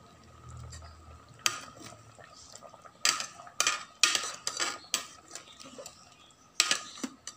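Metal ladle stirring chicken curry in a rice cooker's metal inner pot: irregular clinks and scrapes of metal on metal, the loudest about three and four seconds in and again near the end.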